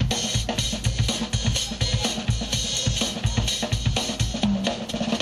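Drum kit played in a fast, dense solo: rapid bass drum and snare strokes under a constant wash of cymbals, with a ringing low drum hit about four and a half seconds in.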